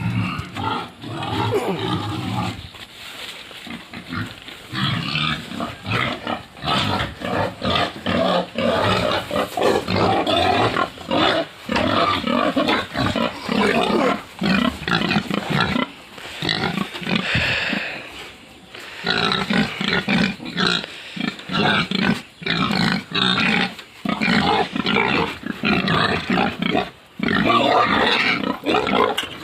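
A group of pigs squealing and screaming loudly and without a break, many voices overlapping: hungry pigs clamouring for their feed.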